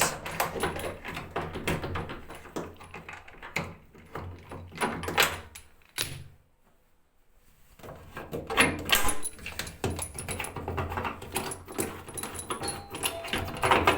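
Transport (transit) bolts being worked loose and pulled out of a front-load washing machine: metallic clicks, clinks and rattles in two spells, with a short pause a little past the middle.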